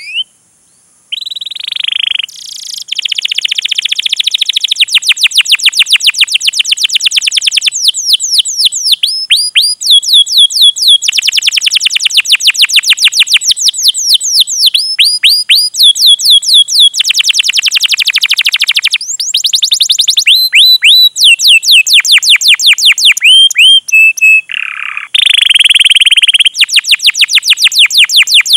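Domestic canary singing long rapid trills of sharp, downward-slurred "cuit cuit" notes, about ten a second, in a run of phrases broken by brief pauses.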